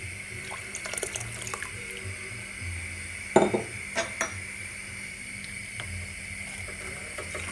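Lemon juice being poured from a glass into a stainless steel pot of hot milk, with small splashing and trickling, and a sharp clink against the pot about three seconds in, then a spoon starting to stir the milk near the end.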